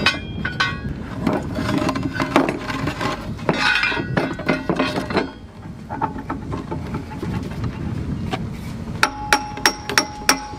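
Steel parts clinking and scraping as a brake component and a homemade steel puller are worked off an anchor winch shaft, ending in a run of quick, ringing metal clinks.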